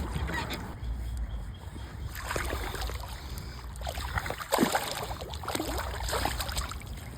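Water splashing in a few short bursts over a low wind rumble on the microphone, as a hooked bass is fought in a creek.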